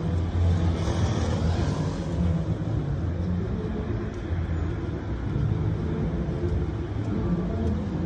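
Road traffic on a city street: a steady low rumble of cars, with one passing car's tyre hiss swelling and fading about a second in.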